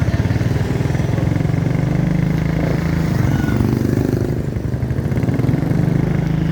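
Motorcycle engine running steadily while riding, a low pulsing hum that rises slightly in pitch about halfway through.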